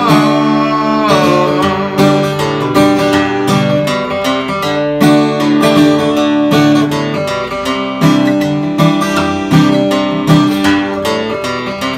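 Acoustic guitar strummed in a steady country rhythm, chords ringing between the strokes, with no singing over it.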